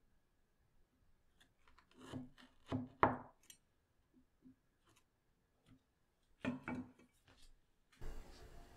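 A large knife cutting through a slab of chocolate bark and knocking on a wooden cutting board: a cluster of cracks and knocks about two to three seconds in, the loudest a single sharp knock, then another short cluster of knocks about six and a half seconds in. A faint steady hiss takes over near the end.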